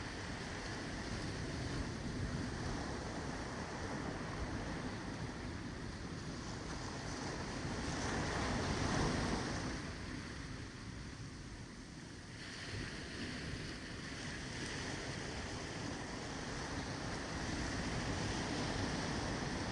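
Ocean surf on a beach: a continuous wash of breaking waves that swells to its loudest about eight to nine seconds in, eases off, then builds again.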